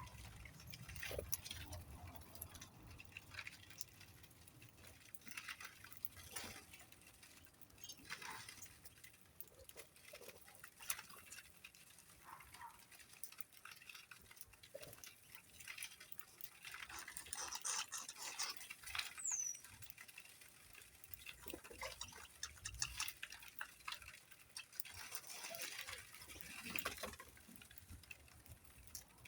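Faint scattered light taps and rustling, typical of small birds pecking and scratching at feed, with one short high descending chirp about two-thirds of the way through.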